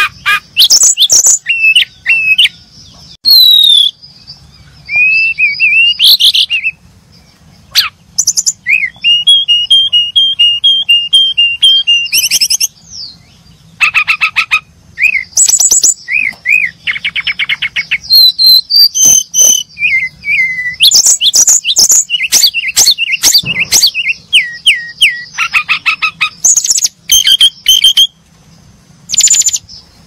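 Brown-chested jungle flycatcher singing a loud, varied song of whistled notes, slurred glides and quick sharp chips, broken by short pauses. About a third of the way in it repeats one clear note about seven times in a quick row.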